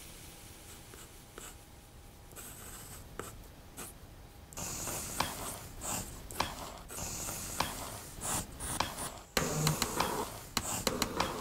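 Pencil lead scratching across paper in short drawing strokes, heard close up. It starts about four seconds in after a quiet stretch with a faint steady hum, and gets louder near the end.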